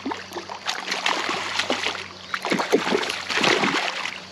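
A hooked rainbow trout thrashing at the water's surface, making a run of irregular splashes.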